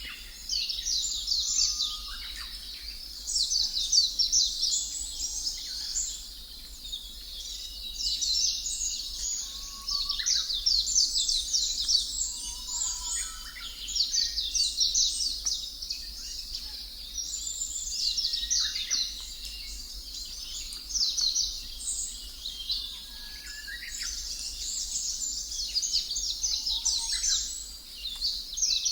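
A chorus of small birds chirping in quick, overlapping twittering phrases that come and go every second or two, with a few lower whistled notes, over a steady low hum.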